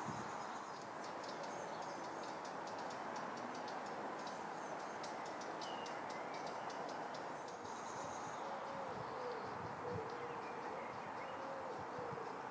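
Outdoor ambience: a steady background hum with many quick high bird chirps for the first half, a few short whistled calls in the middle, and a low wavering call over the last few seconds.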